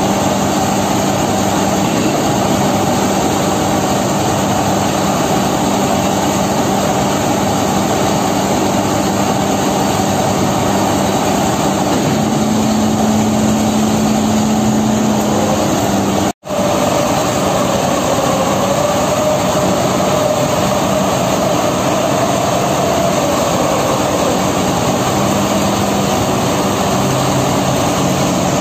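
Sany SR150C rotary drilling rig running: a steady, loud hum of its diesel engine and hydraulics, with the pitch shifting and wavering as the load changes. The sound cuts out for an instant about sixteen seconds in.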